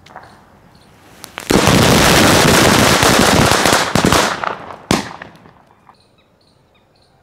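A bundle of paper firecrackers (Laxmi-type paper patake) lit together with gunpowder sprinkled on top, going off all at once. It starts suddenly about one and a half seconds in as a dense, continuous volley of bangs for about two and a half seconds, then dies away, with one last sharp bang about five seconds in.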